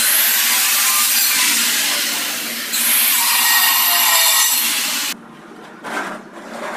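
A power tool cutting with a loud, harsh hiss whose pitch sags under load. It starts abruptly, changes about two and a half seconds in, and stops suddenly about five seconds in.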